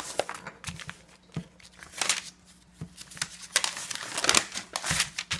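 Paper instruction sheet rustling and crinkling as it is unfolded and handled, in a run of irregular rustles that grow louder in the second half.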